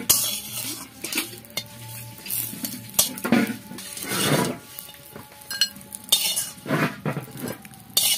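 A steel spatula scraping and clinking against an iron kadai in repeated strokes as fried fish pieces are worked and lifted out, with faint metallic ringing between strokes.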